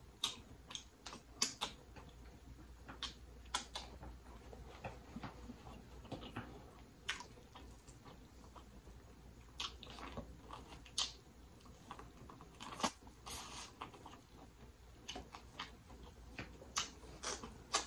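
Close-miked chewing and wet mouth smacks from eating seafood boil, with irregular sharp clicks and crackles scattered throughout, some louder than others.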